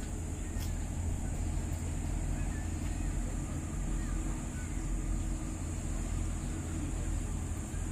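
Steady low drone of ship diesel engines, from the tugboat and cruise ship manoeuvring during docking, with a steady high-pitched buzz over it.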